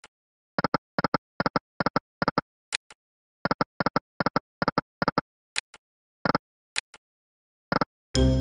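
Slot machine game sound effects: short electronic ticks in quick clusters as the reels stop one after another on each spin. Near the end a loud electronic jingle starts, the game's win sound.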